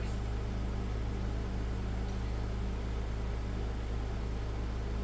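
Steady low electrical hum with an even hiss, unchanging throughout: background room or equipment noise.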